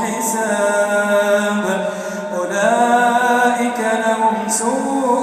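Solo male Quran reciter chanting in tajweed style, drawing out long, melodic held notes with gliding pitch, unaccompanied.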